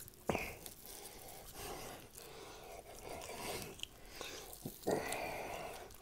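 A man biting and chewing a raw ribeye steak, pulling at it with his teeth. There is a sharp smack about a third of a second in and a louder, noisy stretch about five seconds in.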